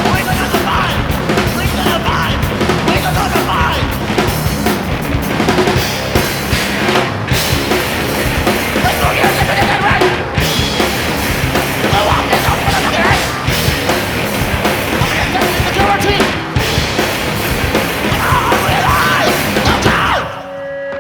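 Loud hardcore punk played by a band: pounding drums and distorted guitars with yelled vocals. It drops away sharply near the end.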